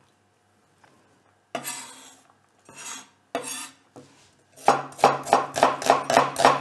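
Chef's knife on a wooden cutting board cutting onion: a few separate slicing, scraping strokes, then fast chopping at about five knocks a second starting about two seconds before the end.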